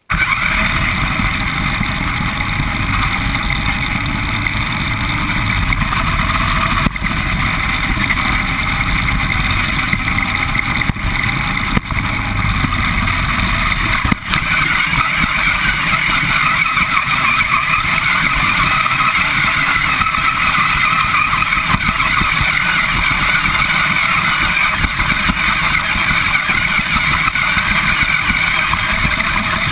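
Radio-controlled car running continuously, its motor and drivetrain whining steadily over tyre and rattle noise, picked up by a camera mounted on the car itself. A few brief dips in level break the steady run.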